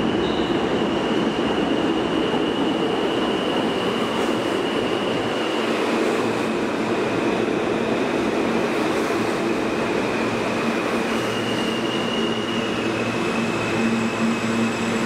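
R160 subway train pulling into an underground station, its wheels rumbling steadily on the rails, with thin, steady high-pitched whining tones over the top.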